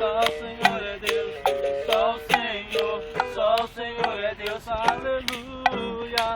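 Live acoustic reggae-style music played by berimbau, acoustic guitar and agogô, with sharp percussive strokes at a steady beat over sustained pitched notes.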